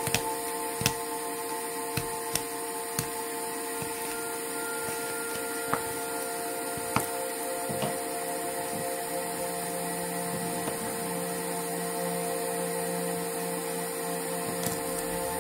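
A steady machine hum made of several constant tones, with a handful of sharp clicks scattered through it.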